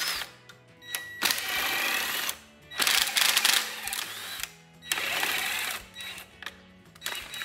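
Cordless impact wrench hammering the engine mount bolts loose on a Toyota 20R engine block, in five bursts of up to about a second and a half each with short pauses between.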